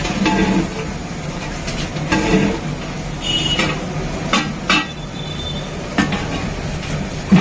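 Long-handled metal ladle stirring and scraping inside an aluminium cooking pot, with several sharp clinks and knocks against the pot's rim and sides. There is a steady rushing hum underneath from the gas burner flame.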